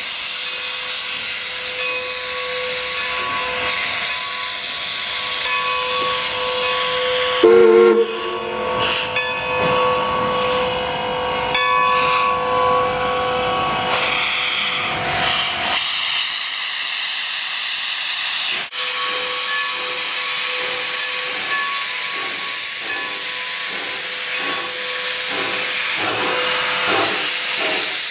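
Steam locomotive hissing steadily as steam vents from its cylinder cocks. A short, loud whistle blast comes about seven and a half seconds in. In the last ten seconds or so a regular puffing sets in, about one and a half beats a second, as the engine works.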